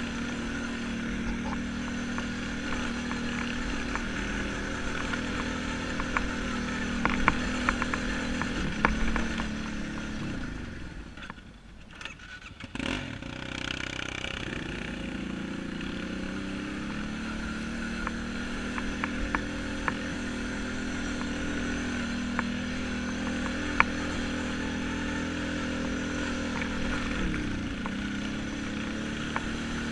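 ATV engine running under throttle over a rough dirt track. About ten seconds in the engine note drops and nearly dies away for a couple of seconds as the throttle is eased off, then climbs back and runs steadily again. Scattered clicks and knocks come from the machine bouncing over the ruts.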